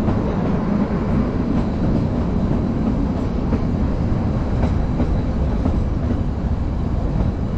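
Kalka–Shimla narrow-gauge toy train running slowly along the track, heard from the coach: a steady rumble of wheels on rail with a few faint clicks.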